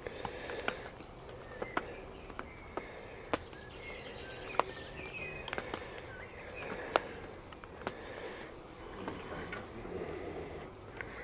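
Outdoor ambience of small birds chirping in short calls, with about a dozen irregular sharp clicks and taps scattered through it.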